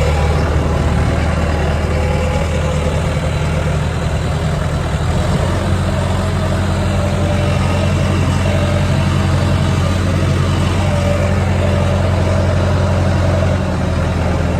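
Farm tractor engine running steadily, its note shifting slightly about five seconds in.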